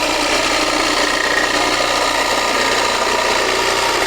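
Electric jigsaw running steadily, its reciprocating blade making a straight cut through a board.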